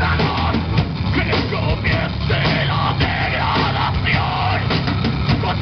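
Live heavy rock band playing: pounding drum kit, electric guitars and bass, with shouted vocals into the microphone.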